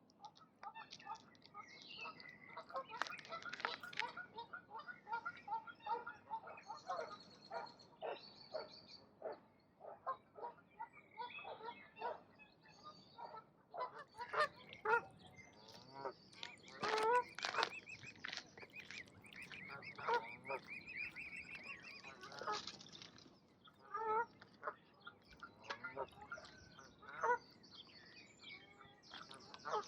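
Ducks calling over and over in runs of short, harsh calls. Small birds chirp and trill higher above them.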